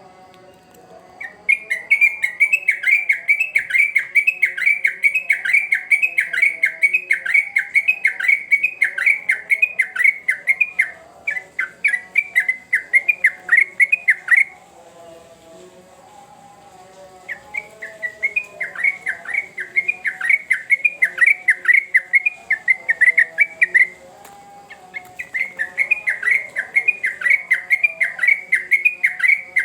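Yellow-vented bulbul (trucukan) singing hard, a fast chattering run of repeated notes at about five a second, in long bouts with two short pauses.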